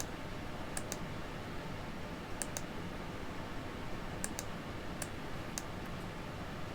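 Light clicks of a computer mouse, about eight, several in quick pairs, over a steady low background hum.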